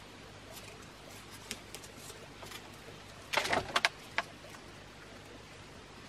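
A brief clatter of sharp knocks and a short scrape about three and a half seconds in, as the burning sticks used to light the candle are handled and set down, over faint scattered ticks and quiet forest ambience.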